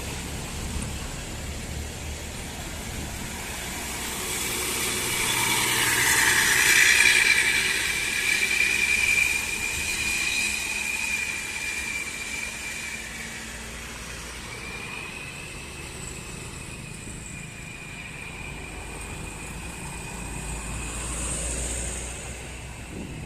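A large vehicle passing on the road, its engine and tyre noise swelling to a peak about seven seconds in and then fading, with a steady high whine that carries on after it and comes back later.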